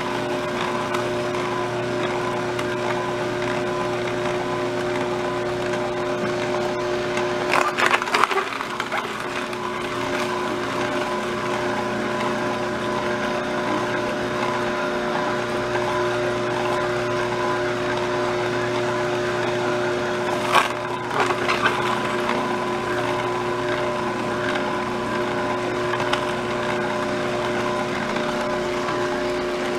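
Electric juicer running with a steady motor hum as it presses fruit and vegetables. Brief crackling, crunching noises come about 8 seconds in and again about 21 seconds in.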